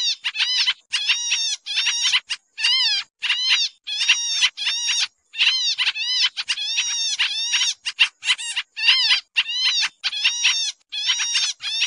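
Pied triller (kapasan kemiri) lure-call recording: an unbroken string of short, arched chattering calls, about two to three a second.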